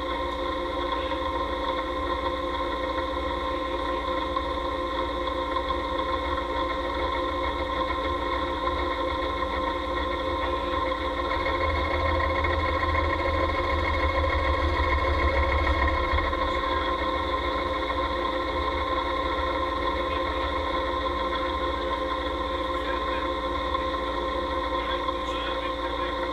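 Knee-type milling machine running, its spindle driving a face-milling cutter across a cast-iron machine part: a steady mechanical hum with several fixed tones. It gets louder and deeper for a few seconds around the middle.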